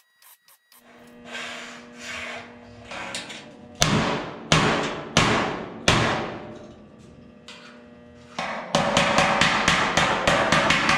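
Steel hammer blows on the bent sheet-steel edge of a 1928 Ford Model A coupe body, knocking it flat against the roof framing. Each blow rings: a few softer strikes, then four loud blows a few seconds in, then a fast run of quick taps for the last couple of seconds.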